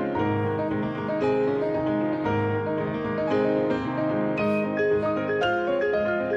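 Instrumental showreel soundtrack music: a keyboard melody with notes struck at an even pace over a held accompaniment.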